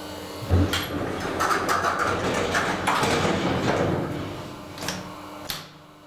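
1970 HIRO elevator with inner doors: a low thump, then the cab's inner doors slide with a rattling noise for about three seconds, followed by two sharp clicks before the low running hum stops.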